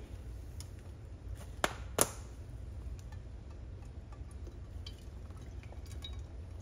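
Avocado oil poured from a glass bottle into an empty ceramic-coated pan, with two sharp clicks close together about a second and a half in, over a steady low hum.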